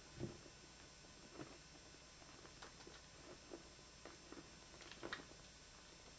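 Near silence with faint scattered rustles and soft bumps from a doe rabbit and her nursing kits shifting and wriggling on a towel. A couple of the bumps are a little louder, just after the start and about five seconds in.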